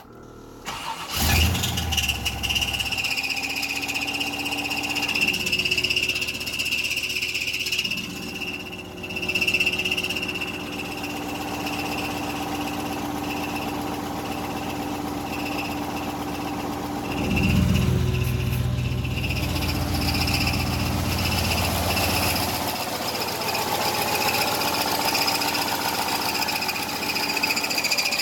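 GM truck V8, just freed after seizing, starting about a second in and running with a steady high-pitched screeching over the engine rumble, which the owner thinks is a piston ring stuck in one of the pistons. The low rumble swells louder for a few seconds about two thirds of the way through.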